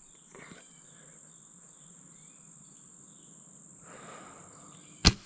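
Crickets trilling steadily in the background, a continuous high-pitched buzz. About five seconds in, a single sharp snap of a compound bow being shot.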